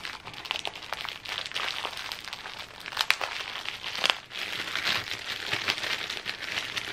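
Clear plastic bags of enamel pins crinkling and rustling as they are handled, with two sharper crackles about three and four seconds in.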